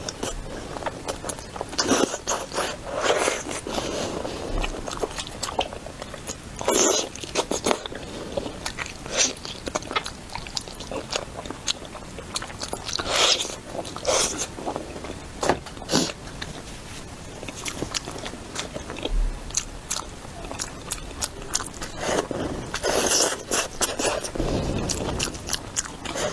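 A person eating close to the microphone: biting and chewing, with crunchy mouth sounds and sharp, irregular clicks scattered throughout.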